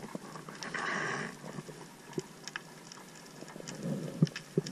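Underwater ambience heard through an action camera in its housing: a faint hiss with a brief rush of water about a second in, then scattered sharp clicks and a few dull knocks.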